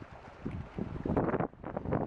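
Wind buffeting the microphone in irregular gusts, strongest about a second in, over water sloshing around a sea kayak.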